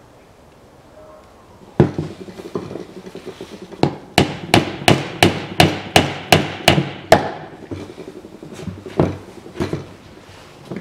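Small hammer tapping a replacement tube into the outlet of a plastic coolant expansion tank, seating it in place of the cracked original. A single blow about two seconds in, then a quick run of about ten evenly spaced taps, roughly three a second, and a few slower taps near the end.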